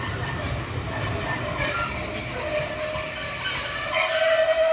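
Railway passenger coaches rolling past with their wheels squealing: a steady high-pitched squeal throughout, with a lower squeal building near the end as the sound grows louder.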